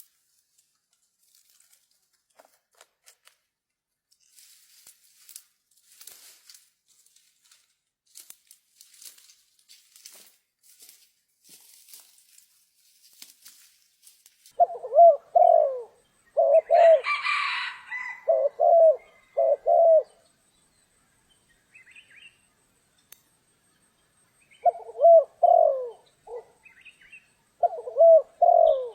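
Spotted dove cooing in repeated short phrases from about halfway through, after a stretch of faint scattered ticks. There is a brief rustling burst partway into the cooing.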